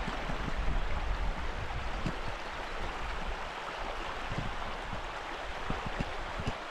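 Steady rushing of a small upland burn running over stones, with scattered soft low thuds.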